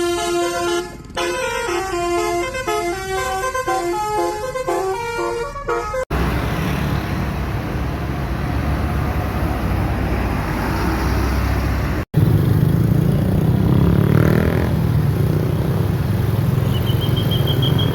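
A bus's 'telolet basuri' multi-tone musical horn playing a quick melody of short stepped notes for about six seconds. After abrupt cuts comes the steady roar of road traffic, then a louder, low bus engine rumble with a brief high tone near the end.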